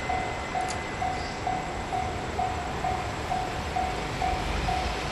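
Level crossing warning bell dinging evenly about twice a second, over the low rumble of an approaching freight train hauled by an EF81 electric locomotive.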